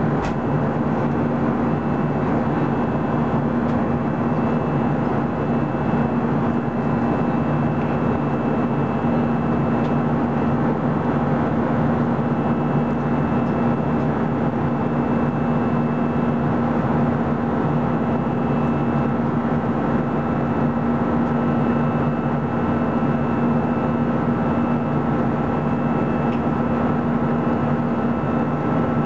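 Airliner cabin noise in an Airbus A320-214 in flight: the steady, unchanging drone of its CFM56 turbofan engines and the airflow, with a low hum and a faint high whine running under it.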